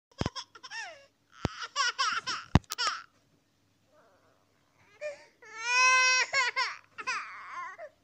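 Baby crying sound effect: broken, wavering sobbing wails, then a long held wail about halfway through, followed by more sobs. There is a short gap between them. Three sharp clicks come in the first three seconds.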